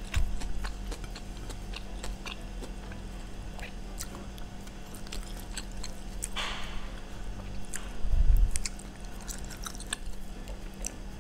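Close-miked chewing of a mouthful of food, with many small wet mouth clicks. A short rush of noise comes about six and a half seconds in, and a low thump just after eight seconds.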